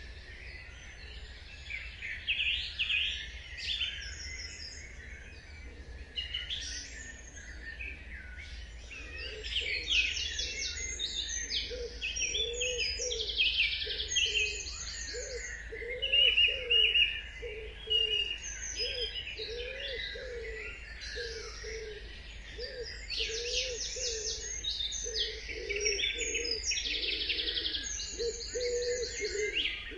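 Dawn chorus: several songbirds chirping and trilling at once, with fast rattling trills among the calls. From about nine seconds in, a low call repeats about once a second beneath them.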